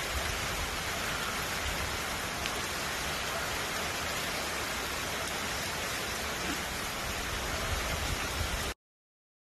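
Steady rain with wind from a tropical storm, with the wind buffeting the microphone, a rumble that rises and falls. It cuts off suddenly near the end.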